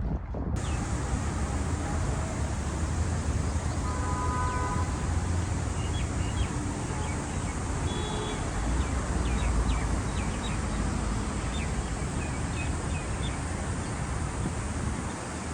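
Steady outdoor background noise with a low rumble, with a short tone about four seconds in and a few faint chirps and ticks.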